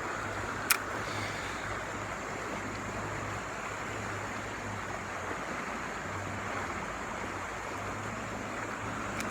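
Shallow, fast-moving river water rushing steadily, with a single sharp click about a second in.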